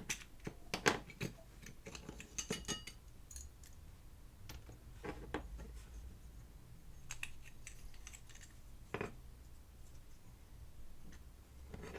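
Small diecast metal and plastic parts of a toy model van clicking and clinking as they are handled and taken apart: a quick run of light clicks in the first few seconds, then single clicks every second or two.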